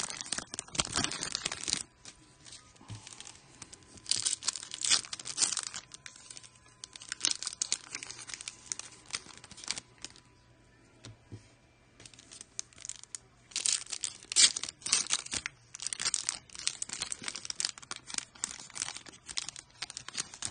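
Foil wrappers of Panini Prizm basketball card packs crinkling and tearing as the packs are ripped open and the cards handled, in irregular bursts with a couple of short quiet gaps.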